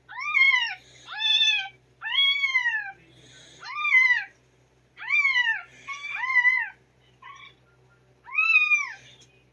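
Recorded kitten meows played from a cell phone speaker: about seven high-pitched meows in a row, each under a second, rising and then falling in pitch, with short gaps between them.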